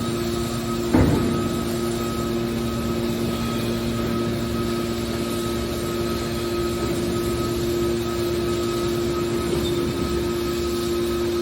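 Metal baling machine running with a steady mechanical hum, with one sharp metal clank about a second in.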